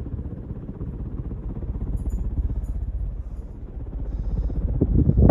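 Hunter Original ceiling fan with an American-made motor running on high, its blades pushing a strong draught that buffets the microphone with a low, fluttering rush, swelling near the end.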